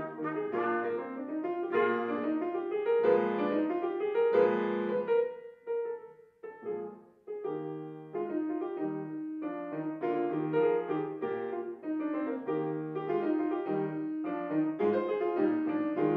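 Sauter grand piano playing a solo passage of a slow classical trumpet-and-piano sonata while the trumpet rests, with a short break in the notes about six seconds in before the piano carries on.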